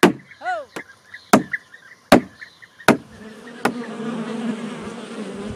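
Sharp knocks about every three-quarters of a second, five times, with a short rising-and-falling call near the start. From about three seconds in, a steady buzz of honeybees takes over.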